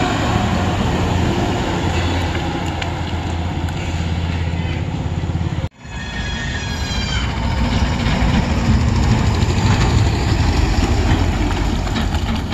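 Diesel engines of a bus and tipper trucks running with a deep, steady drone. The sound breaks off briefly about halfway, a short high tone follows, and the engine noise builds again toward the end.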